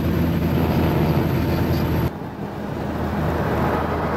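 Steady engine drone and road noise inside a semi-truck's cab at highway speed. There is a short drop in level about two seconds in.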